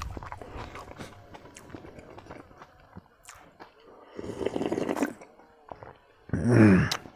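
Eating sounds from one person: faint chewing clicks, then slurping soup from a bowl for about a second, and near the end a loud voiced "ahh" sigh.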